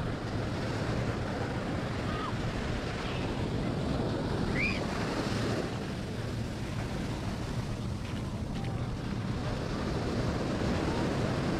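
Ocean surf breaking and washing up a sandy beach in a steady rush, mixed with wind blowing on the microphone.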